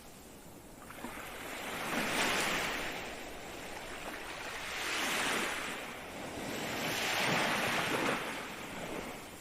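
Ocean waves breaking and washing on the shore, in three swells of surf that rise and fall about every three seconds.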